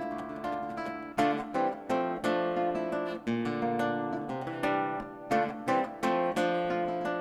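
Solo acoustic guitar playing: ringing picked notes with chords struck every second or two.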